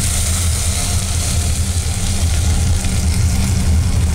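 Puréed ají sauce poured into a hot pot of sautéing onion and garlic, the sizzle easing off after the first second or so as the liquid covers the pan. A steady low rumble of kitchen equipment runs underneath and is the loudest sound.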